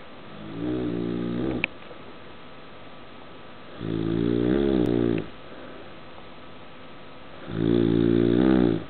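Loud snoring: three long rasping snores, each a second or so, about three and a half seconds apart, the first ending in a short click.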